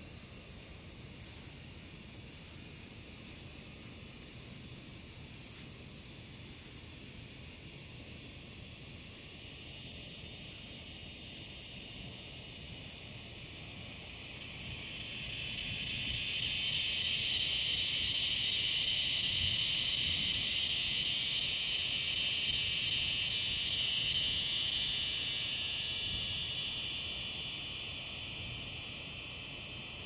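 Evening insect chorus: a steady high-pitched trill throughout, joined about halfway through by a loud buzzing that swells, holds for several seconds and fades near the end.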